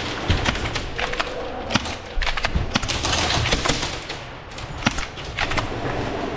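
Airsoft guns firing in a game: irregular sharp clicks and snaps, some close together in short spells, over a noisy background.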